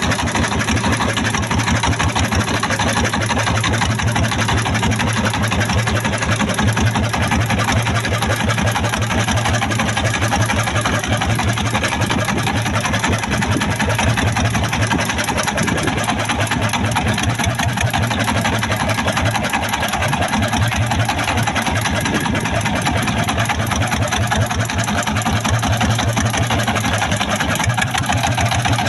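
A boat's engine running steadily with a fast, even chugging.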